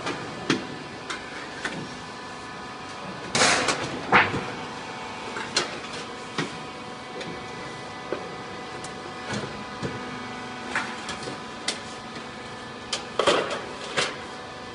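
Roll-forming machine for shaped steel roof ridge caps running with a steady motor hum, with scattered sharp metal clicks and knocks. Two louder bursts of clatter come about three and a half seconds in and again near the end.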